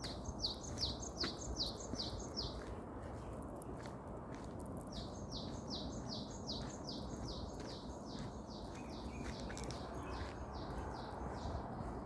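A songbird singing runs of quick, repeated high notes, about six a second, in three runs: near the start, through the middle, and near the end. Under it is a steady low rumble of movement over the dirt trail.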